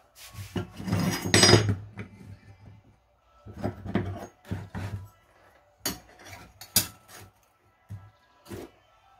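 A wooden hand plane being handled and assembled: a loud scrape of wood on wood about a second in, then a string of short knocks and clicks as the steel blade and the wooden wedge are fitted into the plane's body.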